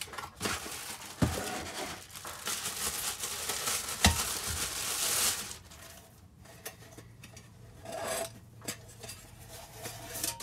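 Unboxing and handling noise: a cardboard box opened and packaging rustled as a titanium camping pot in a mesh bag is lifted out, with a couple of knocks. The rustling stops about halfway through, leaving quieter handling of the pot in its bag.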